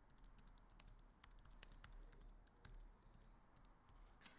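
Faint, irregular small clicks and taps, several a second, with a short rustle near the end.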